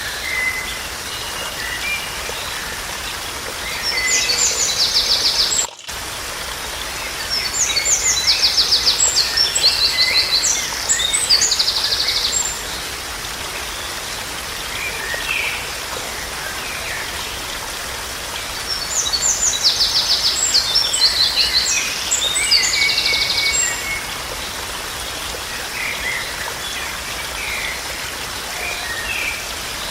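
Birds singing in bursts of high, rapid trilled phrases, three longer bouts with scattered short chirps between, over a steady background hiss.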